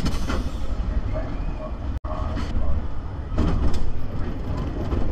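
Spinning roller coaster car running along its steel track: a steady low rumble of the wheels, with sharp clacks and rattles from the car and track. The sound cuts out for an instant about two seconds in.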